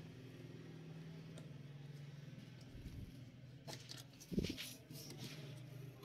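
Faint clicks and one dull knock from fingers handling the plastic front bezel and metal chassis of an opened HP rp5800 desktop case. The clicks come a little past halfway, and the knock follows just after.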